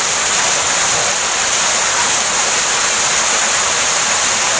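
Waterfall pouring into a rock pool: a steady, unbroken rush of falling water, heavy on the hiss.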